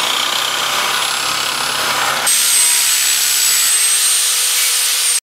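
An electric drill runs a hand meat grinder with vegetables being fed through it. After about two seconds it gives way to an angle grinder cutting into a spark plug, a high steady whine over rough grinding noise, which stops abruptly near the end.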